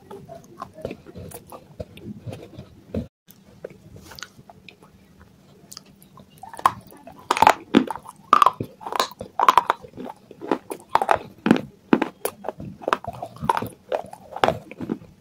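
Close-up chewing of baked clay: soft, dense crunching at first, then loud, crisp crunches several times a second from about six and a half seconds in.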